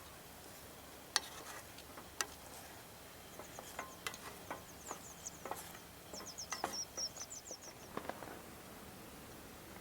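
Quiet outdoor camp ambience with scattered sharp clicks and pops, and two short runs of rapid high-pitched chirping in the middle.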